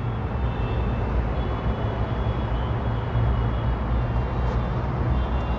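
Steady low rumble and hiss of outdoor background noise, with no distinct event.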